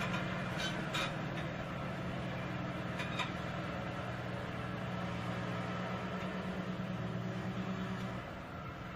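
A heavy machine's engine running steadily, with a few metallic knocks; the engine note drops off near the end.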